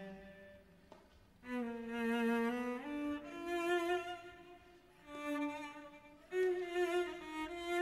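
Background score: a slow melody on a bowed string instrument in the cello's range, long held notes with vibrato. It dies away about a second in, then resumes in new phrases.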